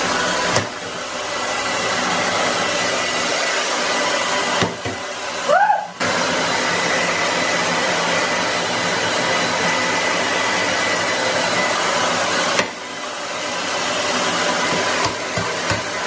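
Hand-held hair dryer blowing into an iced-up freezer compartment to melt the ice: a steady rushing airflow with a thin motor whine. It cuts out briefly about five seconds in and drops in level again near the end.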